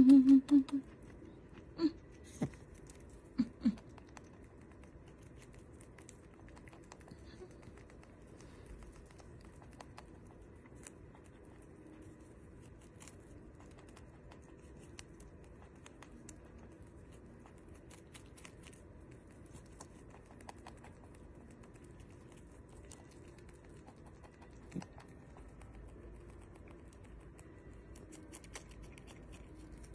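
A Holland lop rabbit chewing strawberries: faint, rapid, irregular clicking and munching that goes on steadily. A few brief louder sounds come in the first few seconds.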